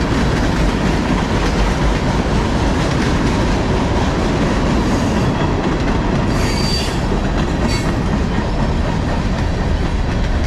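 Tank cars and covered hoppers of a freight train rolling by slowly: a steady rumble of steel wheels on rail. A brief high wheel squeal comes about six and a half seconds in.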